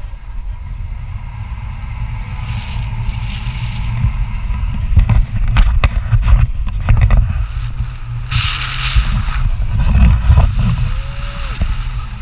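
Wind buffeting the microphone: a loud, steady low rumble, with a few sharp knocks about five to seven seconds in.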